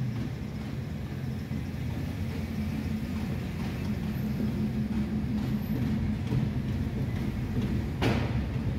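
Steady low rumble of a car's engine and tyres heard from inside the cabin while driving slowly in traffic, with a short sharp knock near the end.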